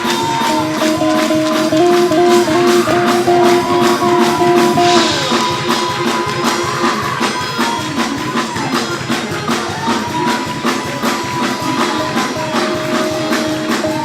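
Church band playing fast shout music: long held keyboard chords that shift pitch in steps, over a quick, even drum beat with tambourine.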